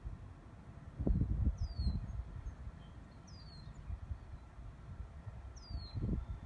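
A bird calling three times, each a short chirp that swoops down and back up, over gusts of low wind rumble on the microphone, which are the loudest sound.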